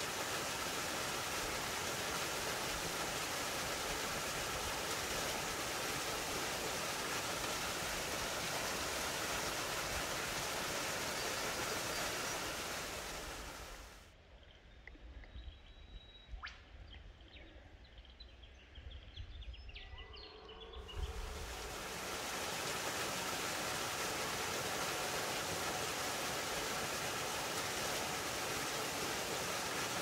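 Rushing water of small mountain-creek cascades: a steady, even hiss. For several seconds in the middle it drops to a quieter trickle with a few faint bird chirps and a low bump, then the full rush returns.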